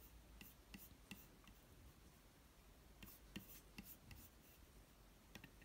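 Faint, irregular clicks and light rubbing of a fingertip working a MacBook Pro's trackpad, with a few seconds' gap between small clusters of clicks.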